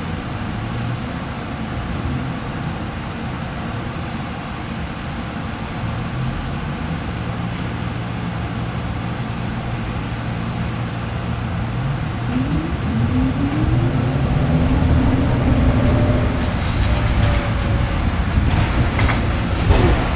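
Cabin ride noise of a New Flyer XT60 articulated electric trolleybus under way: a steady rumble from road and body. About midway a faint whine from the traction drive rises in pitch as the bus accelerates, the 'racecar' sound. A short knock comes near the end.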